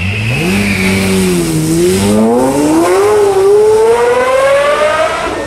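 Pagani Zonda F's Mercedes-AMG 7.3-litre V12 accelerating hard. The engine note rises, dips briefly about a second and a half in, then climbs steadily in one long pull and cuts off near the end.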